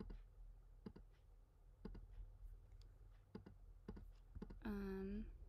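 Faint, scattered clicks of a computer mouse and keyboard, one or two at a time every second or so. Near the end comes a short hum from a voice.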